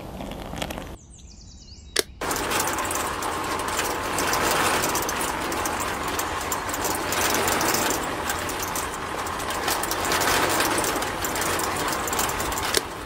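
Small electric motor of a miniature toy concrete mixer switching on with a click about two seconds in, then running steadily and turning its tin-can drum with wet cement mix inside, a dense grainy whir that cuts off just before the end. A brief pour of water into the drum comes first.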